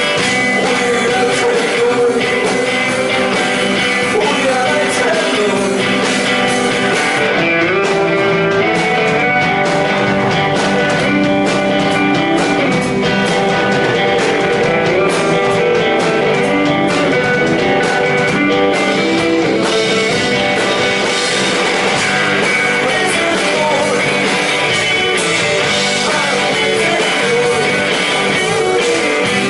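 Live rock band playing, led by guitar, at a steady high volume.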